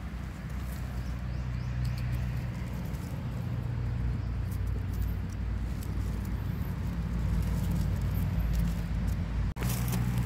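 Dry leaf litter rustling and crackling in short bursts as a hand picks small mushrooms off the forest floor. A steady low hum runs underneath and grows a little louder, and the sound drops out briefly near the end.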